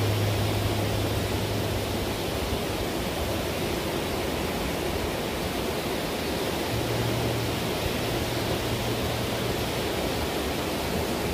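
Surf breaking on a beach: a steady, even rush of waves.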